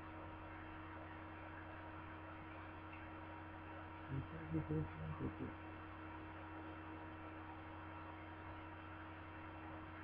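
Steady electrical mains hum. About four seconds in comes a short closed-mouth vocal murmur, lasting about a second and a half.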